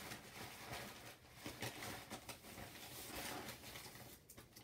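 Faint crinkling and rustling of a candy wrapper being worked open by hand: a dense run of small crackles.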